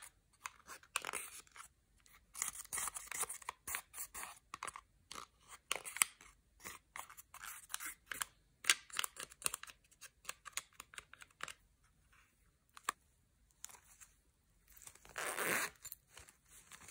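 A plastic spatula scraping pressed makeup in a palette, and hands handling makeup and craft supplies over a glass tray. A run of quick scratchy scrapes and clicks, with a longer, louder noisy scrape near the end.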